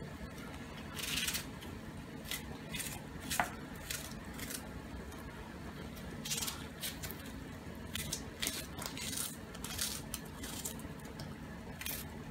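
Knife cutting through a half onion held in the hand over a pot, with irregular crisp cuts about one or two a second, over the steady hiss of boiling water.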